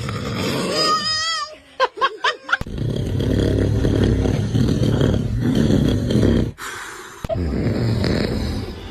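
Loud snoring alternating with a baby's squeals and giggles, in several short clips cut together. A wobbling high squeal comes about a second in, quick yelps just after it, then a long rough snore with a sudden cut and another stretch of snoring.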